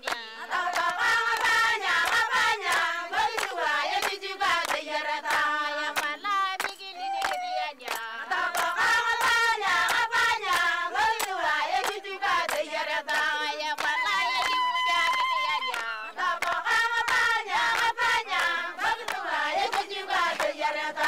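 A group of women singing together, with steady rhythmic hand clapping.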